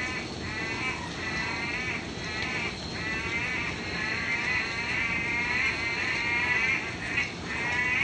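Loud chorus of frogs: many overlapping pulsed, trilling calls that run almost without a break.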